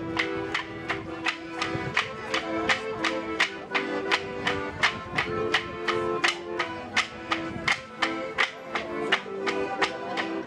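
Traditional Karachay folk dance music: a held melody line over a sharp, even beat of about three strokes a second.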